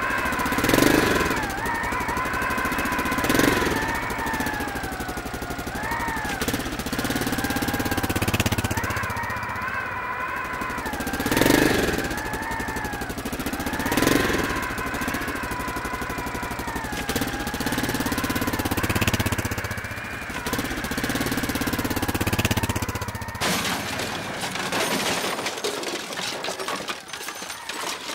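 Sci-fi flying-saucer sound effect: a continuous electronic hum of several wavering high tones that bend up and down in pitch over a pulsing low drone, swelling louder several times. Over the last few seconds it turns scratchy and crackling.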